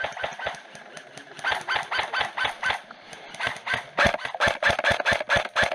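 Running footsteps with gear rattling, heard from a body-worn camera: a fast, even run of thuds, about four to five a second, loudest near the end.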